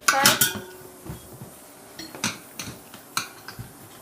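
Steel tire spoons clinking against a Honda XR650's front wheel rim as the tire is levered over the rim, a handful of sharp separate metallic clinks.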